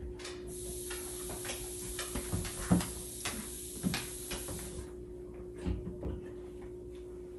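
Dull knocks and thumps, five or so spread irregularly, over a steady low hum, with a high hiss that stops about five seconds in. These are muffled sounds from behind a closed wooden door.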